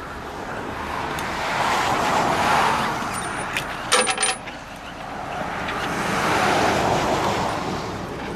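Two vehicles passing one after the other, each swelling and then fading away. A brief cluster of metallic clinks comes about four seconds in.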